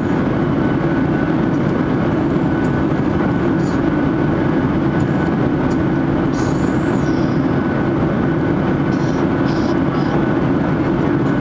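Steady cabin roar inside a Boeing 737-800 in the climb after takeoff: its CFM56-7B turbofans at climb power and air rushing past the fuselage, heard from a window seat over the wing, with a faint steady whine running through it.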